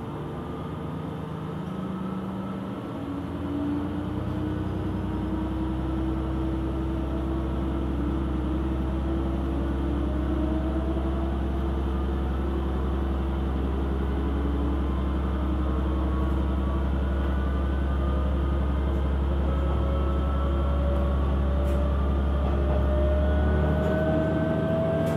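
KiHa 120 diesel railcar's engine and transmission working as the train picks up speed. A steady low drone is overlaid by a whine that climbs in pitch, drops back once about halfway and climbs again. The sound grows louder over the first few seconds.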